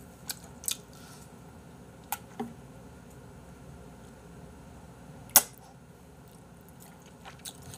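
Quiet eating of udon noodles: a few small mouth clicks and smacks, with one sharp click about five seconds in.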